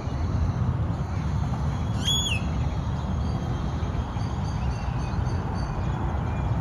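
A single clear, high bird call about two seconds in, falling in pitch at its end, followed by a run of faint, short high chirps, over a steady low rumble.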